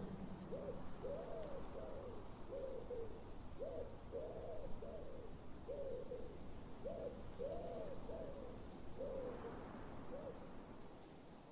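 A bird's low hooting calls, repeated in phrases of about three notes: a short one, a longer one, then a shorter one, every two to three seconds.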